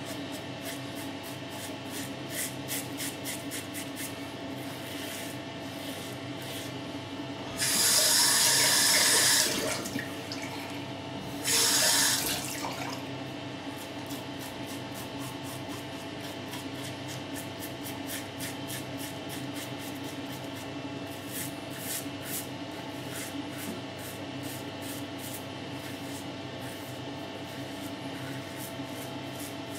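Fatip Piccolo open-comb safety razor scraping through three days' stubble in many short strokes. A tap runs twice briefly, about eight and twelve seconds in, louder than the strokes.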